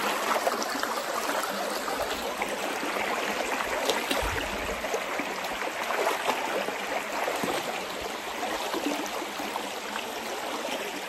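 River water running steadily, an even rushing and trickling flow.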